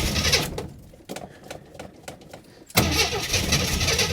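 1980 Jeep Cherokee Chief's AMC engine being cranked by the starter for a cold start after sitting a year, close to catching. The cranking stops about half a second in, a few faint sputters follow, and a second bout of cranking starts a little under three seconds in.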